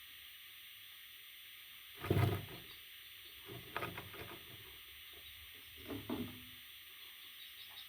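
Parrot chicks shuffling and scrabbling about: a few soft rustling bumps, the loudest about two seconds in, over a steady background hiss.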